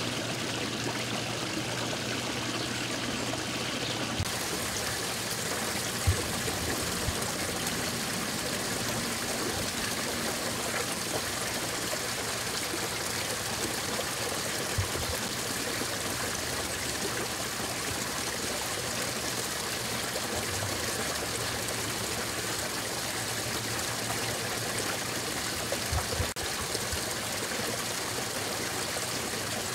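Running water trickling steadily into a garden pond, with a few brief low thumps.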